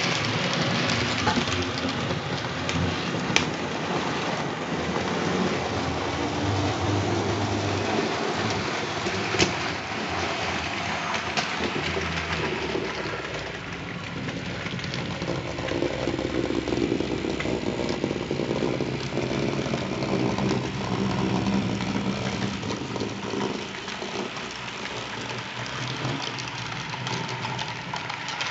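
Model series 93 steam locomotive hauling a model freight train: a steady running rumble of motor and wheels on the track, with a few sharp clicks. The model is being run in after long storage.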